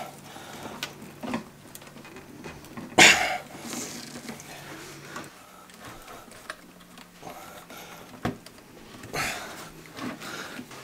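Scattered clicks and light clatter from the small plastic and metal parts of a car cassette player being handled and worked apart, with one louder sharp clack about three seconds in.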